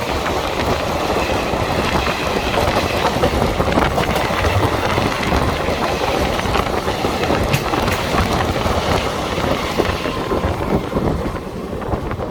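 Railway wheels clattering over the track at speed with a dense rushing noise, heard from aboard an Indian express train as another train crosses alongside; the rush drops off near the end.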